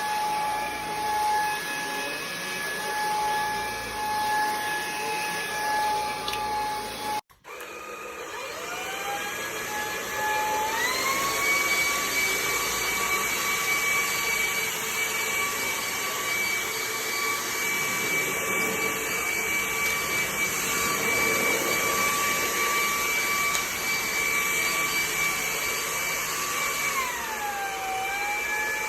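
TASVAC cordless stick vacuum's motor running with a steady whine. After a sudden break about seven seconds in, it spins up again in steps to a higher whine, which dips briefly near the end and climbs back.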